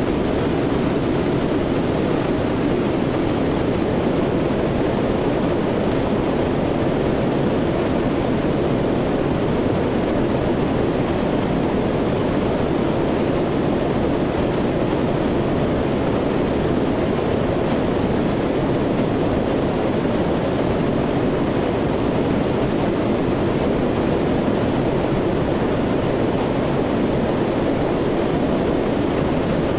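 Steady in-flight noise of a C-130 Hercules's four turboprop engines, heard from inside the aircraft: an even rush with no clear pitch that does not change.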